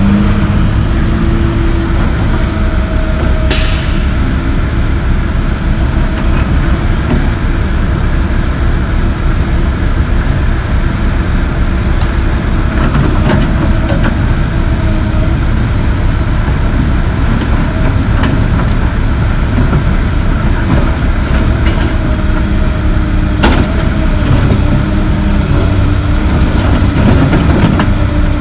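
Diesel engines of a Komatsu PC220LC track excavator and a dump truck running steadily as the excavator swings and works, with a short burst of air hiss about three and a half seconds in.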